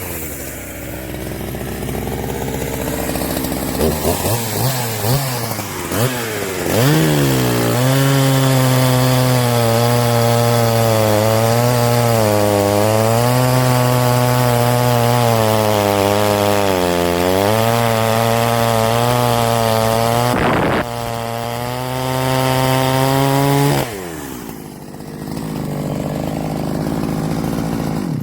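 Greencut GS750X 75cc two-stroke chainsaw idling, blipped a few times, then held at full revs for about sixteen seconds, the pitch sagging several times as the chain cuts into wood, before it drops back to idle. A sharp knock comes about two-thirds of the way through.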